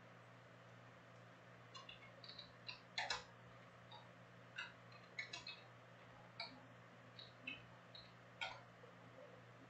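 Trading cards being thumbed through in the hand: faint, irregular light clicks and ticks of card edges flicking, over a steady low electrical hum.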